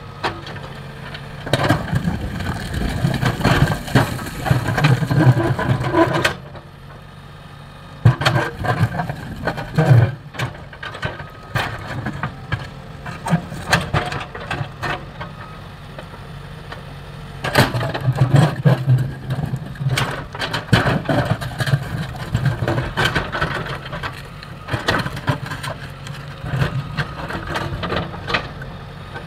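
JCB 3DX backhoe loader's diesel engine running, rising under load in several spells as the hydraulics work and dropping back to idle in between. Repeated knocks, scrapes and cracks come from stones grinding against the steel bucket as it digs out rock.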